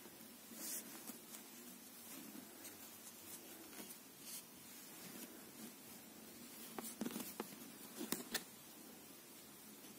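Faint clicks and scratches of knitting needles and yarn as stitches are worked, with a few sharper clicks about seven and eight seconds in.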